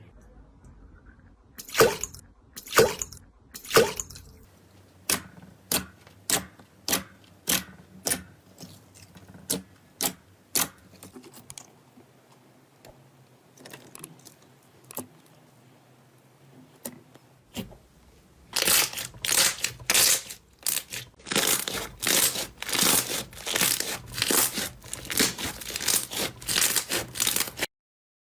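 Slime being pressed and squeezed by hand, giving sharp crackling pops, about one a second at first, then a quieter stretch, then a fast run of dense crackles in the last third.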